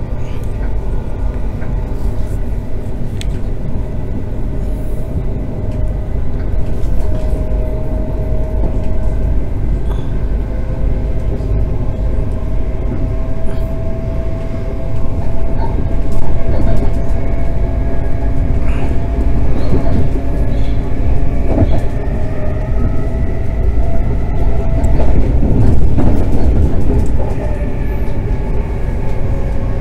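A ScotRail Class 380 Desiro electric multiple unit running: a steady low rumble with thin whining tones from its traction motors that drift slightly in pitch, and a few brief knocks.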